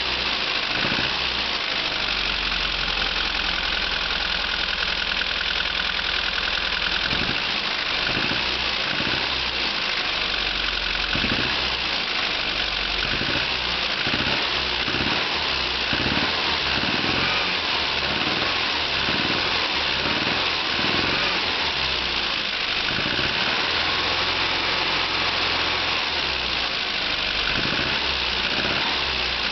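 Austin Mini 1300 engine running with the choke out and being revved repeatedly; an abnormal noise comes in on each acceleration and fades when the revs are held steady, which the owner takes for a failing engine.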